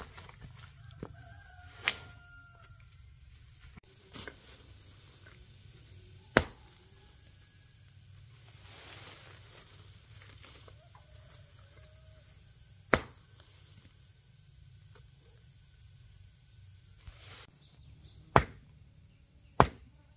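About six sharp single knocks or chops at irregular intervals, over a steady high-pitched insect drone, with a few faint clucks between them.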